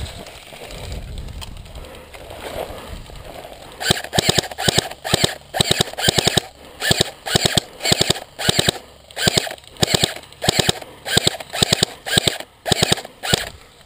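Airsoft gun firing repeated single shots, about two a second, each a sharp double click, starting about four seconds in.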